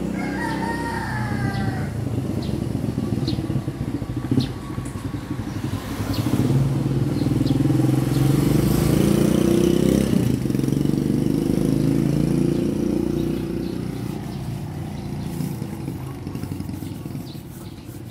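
Motor vehicle engine running on the street, growing louder about a third of the way in, staying loud for several seconds, then fading as it passes.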